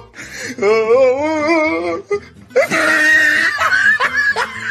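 A golden retriever's drawn-out whining cry with a wavering pitch, then after a short pause a second, harsher and higher cry.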